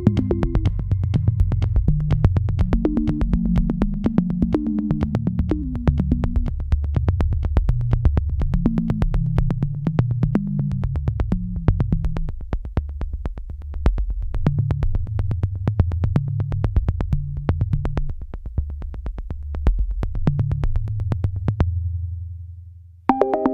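Background electronic music: synthesizer over a steady, fast beat. It fades out near the end, and another piece of music starts just after.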